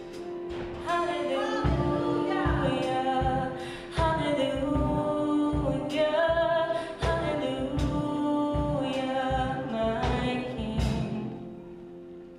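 A woman singing a gospel worship song over keyboard and drums. The music dies away near the end.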